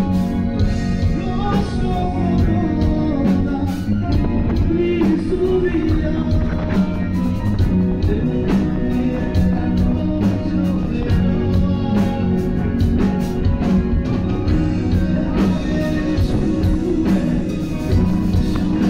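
Live rock band playing: electric guitar, bass guitar, keyboard and drum kit, with a singer at the microphone.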